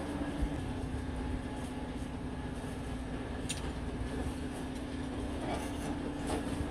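Steady mechanical drone with a constant low hum tone, with a few faint clicks scattered through it.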